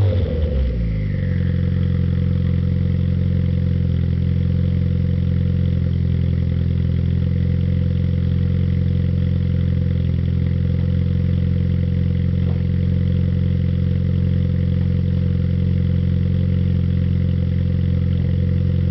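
Suzuki Swift turbo's engine and exhaust settling from a rev in the first second, then idling steadily.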